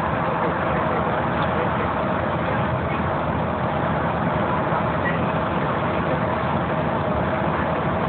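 Steady engine and road noise inside a moving transit bus, with a faint steady whine under the rumble.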